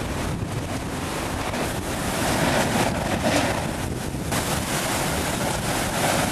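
Hurricane wind buffeting the microphone over heavy surf, a dense, rough rushing noise that swells and eases.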